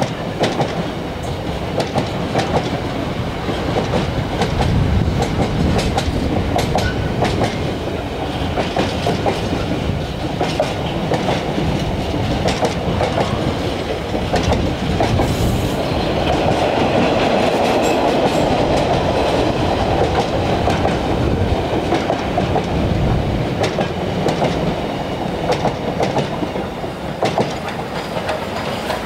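Container freight train's wagons running past close by: a continuous rumble and rattle, with wheels clicking steadily over the rail joints.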